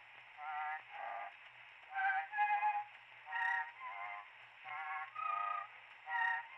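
A short instrumental improvisation on a small hand-held reed instrument, heard as an acoustic wax-cylinder recording played back and digitized. It comes as a string of short wavering notes, about one every half second to second, thin and narrow in range over faint surface hiss.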